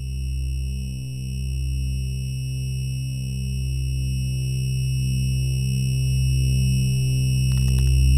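Electronic synthesizer drone: a steady low hum under several high held tones, with a softly pulsing middle layer, slowly swelling in loudness. A few faint clicks near the end.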